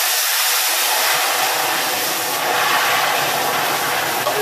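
Red wine vinegar hitting a hot stainless-steel pan, sizzling and boiling hard with a loud, steady hiss.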